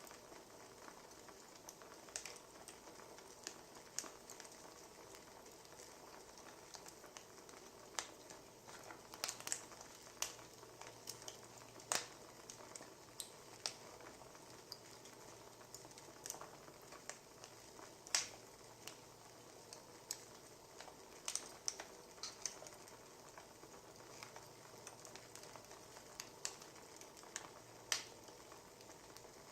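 Wood fire crackling, with sharp irregular pops over a faint steady hiss.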